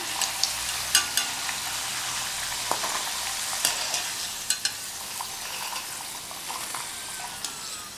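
Cubes of elephant foot yam sizzling in hot deep-frying oil, a steady hiss, with a few light clicks of a wire spider skimmer against the pan as the partly fried pieces are lifted out.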